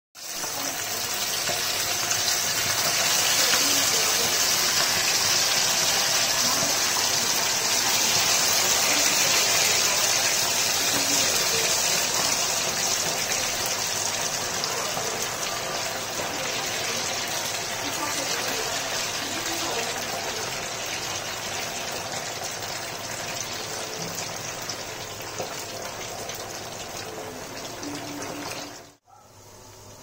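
Battered chicken pieces deep-frying in hot oil in a pan: a loud, steady sizzle, loudest in the first ten seconds and then slowly easing, that cuts off suddenly near the end.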